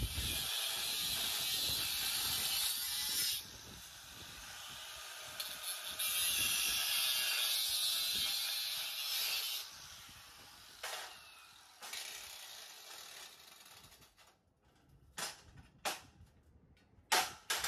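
Steel rectangular tubing being cut with a power tool in two long passes of harsh, high-pitched cutting noise, each about three seconds. A few sharp metal clinks follow near the end.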